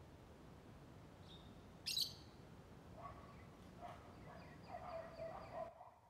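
Lovebird calling: one sharp, shrill chirp about two seconds in, then a few seconds of lower chattering notes that cut off abruptly near the end.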